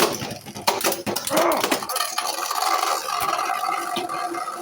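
3D-printed Beyblade spinning tops clashing in a stadium. Rapid sharp clicks and knocks of the hits come first, then after about two seconds a steady whirring hum of the spinning tops.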